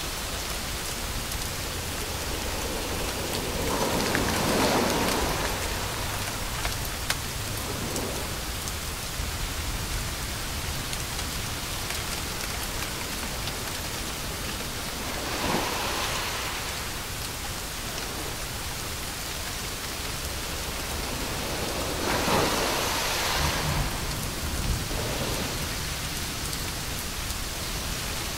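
Steady, rain-like hiss of white noise played to lull a baby to sleep, swelling louder three times.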